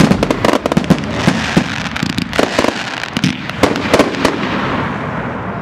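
A barrage of consumer fireworks: many bangs and crackling bursts in quick succession. The bangs stop about four seconds in, and the sound trails off.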